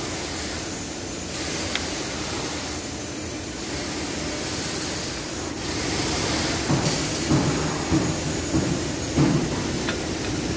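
A wheel bearing being pressed into a steering knuckle, driven through an adapter on its inner race: a run of about six dull knocks about two-thirds of the way through, over a steady background hiss.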